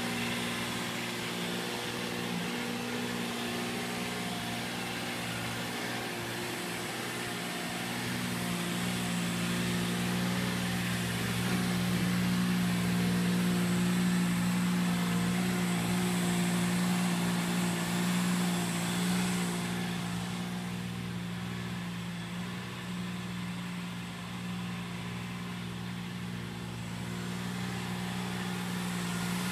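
Dingo mini tractor's engine running steadily as its rotavator turns the floor litter, a constant mechanical hum that grows louder about a third of the way in and eases again past the middle.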